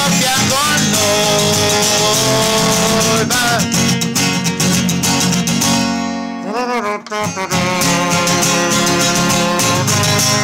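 Instrumental break of a pop song, with a guitar playing the melody over a full backing track; the backing thins out briefly about six seconds in, under a few sliding guitar notes.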